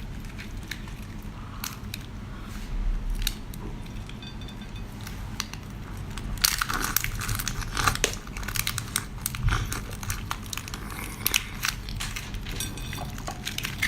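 Someone chewing a big mouthful of spicy seafood, with wet crunching and crackling close to the microphone; the chewing gets busier and louder from about six seconds in.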